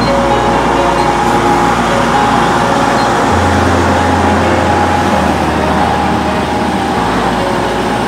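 Diesel semi-truck engine running with a steady noise, under background music whose low bass notes change every couple of seconds.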